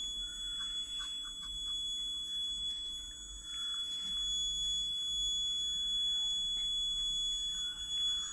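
Piezo buzzer on a 9 V battery sounding one steady, unbroken high-pitched tone, held at its quietest by a single 1 kΩ resistor in series. A few faint clicks and rustles sit under it.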